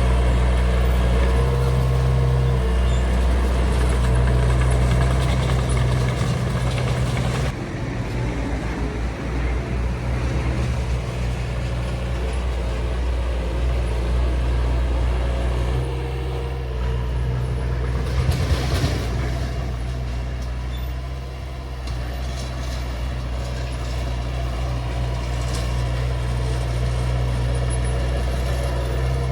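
Bulldozer diesel engine running steadily under work, with a short hiss about two-thirds of the way through.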